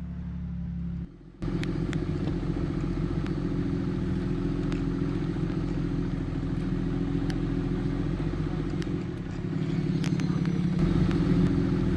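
Cummins turbo-diesel of a Ram 2500 pickup running steadily under way, with scattered light ticks. After a brief break about a second in it holds even, then grows louder near the end.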